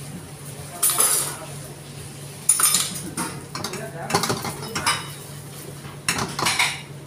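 Metal frying pan of stir-fry being tossed and shaken on a gas range's burner grate: bursts of metallic clattering and scraping every second or so, over a steady low hum.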